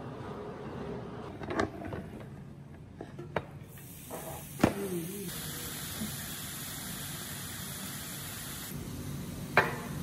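Raw sliced duck meat and vegetables sizzling on a hot griddle pan: a steady hiss starts about four seconds in, after a few sharp knocks, and eases a little near the end. Another sharp knock comes near the end.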